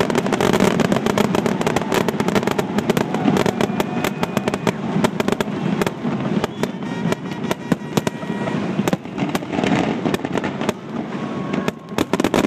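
Fireworks finale: a dense, rapid barrage of shell bursts and crackling reports going off one on top of another, with a brief lull near the end before the bangs pick up again.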